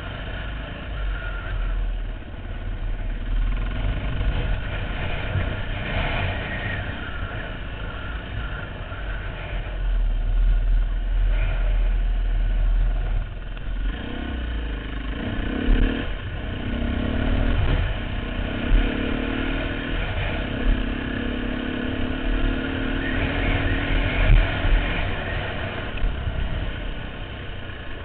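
Dirt bike engine running under way, revving up and down as the rider works the throttle and gears, with wind buffeting the helmet-mounted microphone.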